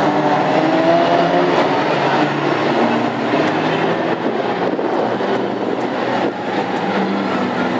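Engines of several Classic Hot Rod race cars running together at reduced speed under caution, a steady drone of overlapping engine notes.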